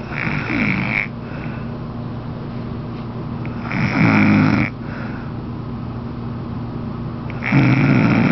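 An elderly woman snoring loudly: three snores about four seconds apart, each lasting about a second, the first fainter than the other two. A steady low hum sits beneath them.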